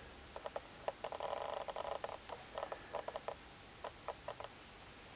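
Faint irregular clicks and taps, with a short rubbing sound about a second in, from fingers handling and turning over a leather loafer; the clicks thin out after about three seconds.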